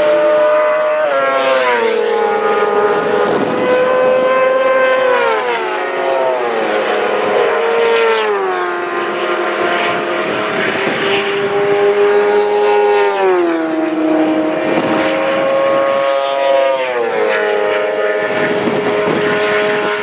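Racing sidecar engine running hard at speed. Its pitch drops in steps every three to four seconds at each gear change, five times in all.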